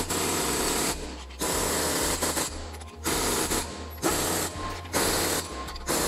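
Impact wrench hammering on a car's wheel bolts in a string of short bursts, each about half a second to a second long, with brief pauses between them.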